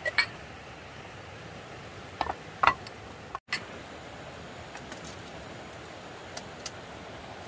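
A few sharp clinks and knocks of small hard objects being handled, the loudest about two and a half seconds in, over a steady rushing background noise. The sound cuts out completely for a split second partway through.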